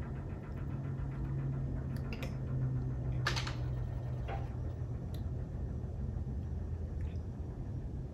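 A steady low hum, with a few faint clicks of a metal spoon against a glass mug and a short rushing sound a little over three seconds in.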